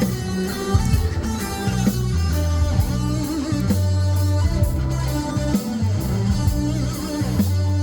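Live band playing an instrumental passage: electric guitar over bass notes that change about every second, with a steady drum beat.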